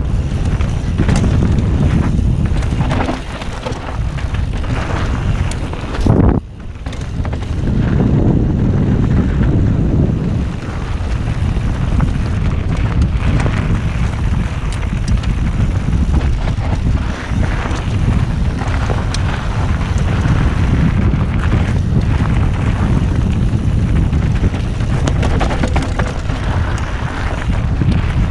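Wind buffeting the helmet-mounted action camera's microphone on a fast mountain bike descent, mixed with the tyres crunching and rattling over a loose, dusty gravel trail. The noise is steady and heavy in the low end, with a brief knock and then a short lull about six seconds in.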